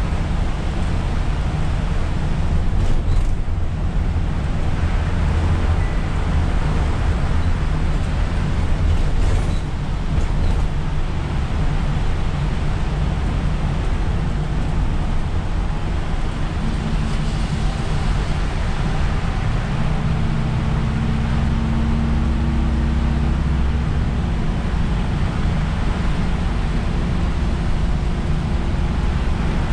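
Cab of an Isuzu Erga city bus on the move: the engine rumbles low under a steady hiss of tyres on a rain-soaked road. In the second half the engine settles into a steadier, more even tone.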